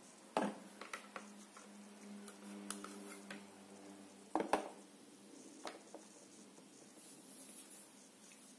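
A small plastic UV curing lamp being handled and set down over a phone on a table: a few light taps and knocks, with a sharper double knock about four and a half seconds in as it lands. A faint steady hum runs under the first half.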